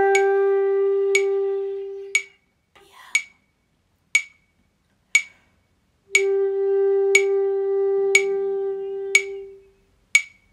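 Transverse flute holding one long note that dies away in a decrescendo over the first two seconds. After a quick breath, the same note starts again about six seconds in, is held, and fades out near the end. A metronome clicks steadily once a second throughout.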